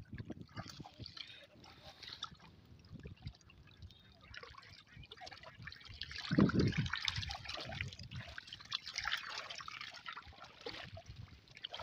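Shallow water trickling, dripping and splashing as a monofilament gill net is lifted and waded along in the water, with a louder splash a little past halfway.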